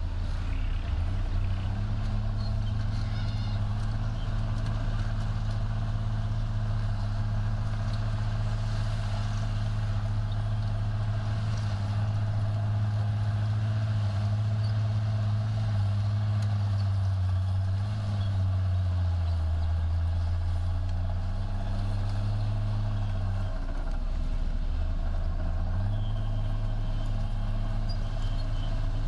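Diesel engine of a heavy earthmoving machine running steadily under work, its pitch sagging twice in the second half before picking back up.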